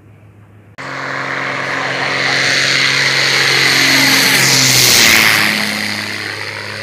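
Embraer Ipanema crop-dusting plane's piston engine and propeller passing low overhead. The engine note sets in suddenly about a second in, grows louder, and drops in pitch as the plane goes over about five seconds in.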